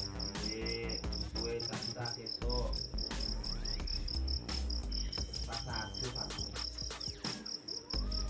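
A cricket chirping steadily in a high, evenly pulsed trill that does not let up.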